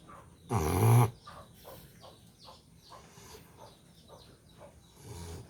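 American Bully dog snoring: one loud, rattling snore about half a second in, and a softer one near the end.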